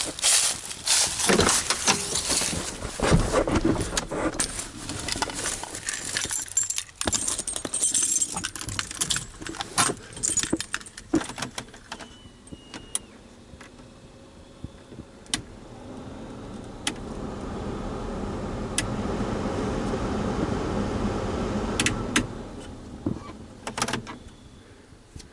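Keys jangling and a run of clicks and rattles, then a newly installed Ford F250 heater/AC blower motor is switched on: a steady rush of air builds up, holds for several seconds and cuts off suddenly, showing the new motor works.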